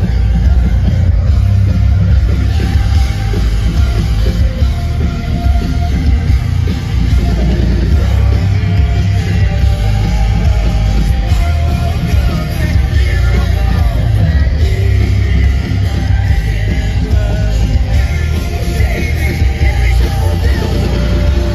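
Live heavy rock band playing loud, with singing over distorted guitars, heavy bass and drums.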